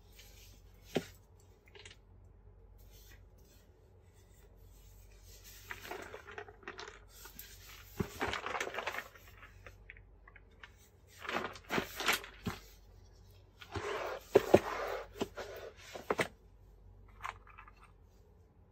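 Gloved hands handling a cardboard puzzle box and a sheet of embossed paper: a sharp tap about a second in, then several spells of paper rustling and crinkling with small clicks and knocks.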